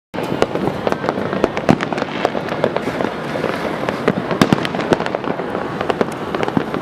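Many fireworks and firecrackers going off at once, a dense, continuous crackle of pops and bangs with no let-up. It cuts in abruptly right at the start.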